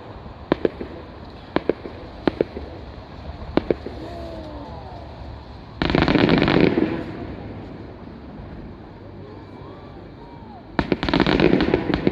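Fireworks bursting overhead: a string of separate sharp bangs over the first few seconds, then a dense cluster of rapid crackling reports about six seconds in, and another near the end.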